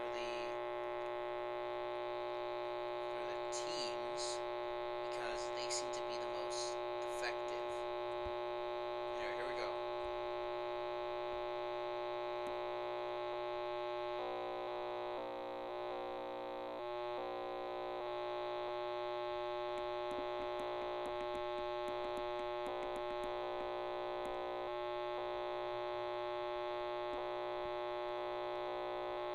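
Circuit-bent radio giving out a steady electronic hum made of many held tones. Faint warbling chirps come in the first ten seconds, and later the hum flickers and stutters with a few faint ticks, as points on the bared circuit board are touched.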